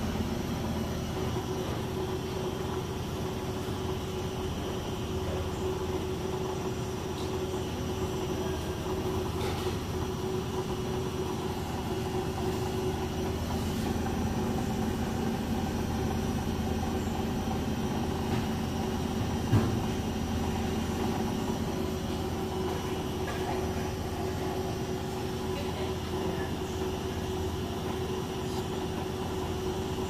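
Beko washing machine spinning its drum on an intermediate spin with an unbalanced load, a steady mechanical hum and rumble. There is a single knock about twenty seconds in.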